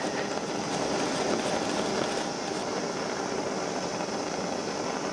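Copper wire brush scrubbing back and forth over a steel bolt, a continuous scratchy rasp, working beeswax into the warm metal.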